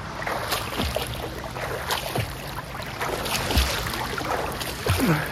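Sea water splashing and sloshing close to the microphone as a swimmer strokes one-armed through small waves, with a low thump of water about every second and a half.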